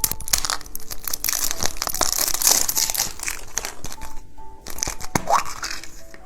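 Crinkly plastic wrapping of a candy surprise egg being handled, torn and pulled open, a dense run of crackles and small snaps.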